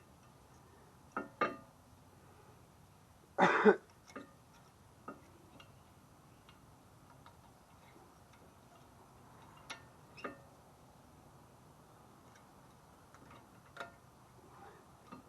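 Scattered sharp metal clicks and knocks from handling brake pads and caliper bracket hardware: a quick pair about a second in, then a louder, rougher burst of about half a second, followed by single clicks every few seconds.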